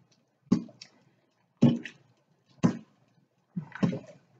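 Spoon stirring thick risotto in an electric pressure cooker's metal inner pot, knocking against the pot about once a second with the stroke.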